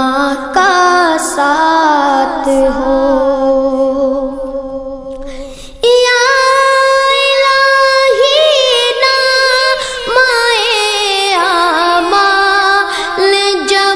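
Devotional singing of a naat in a high voice, with long held notes that waver and turn in ornaments. About six seconds in the sound cuts abruptly to a louder sung passage.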